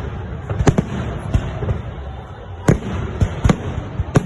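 Fireworks salute shells bursting aloft: a run of sharp bangs at irregular intervals, several in a few seconds, over a low rumble.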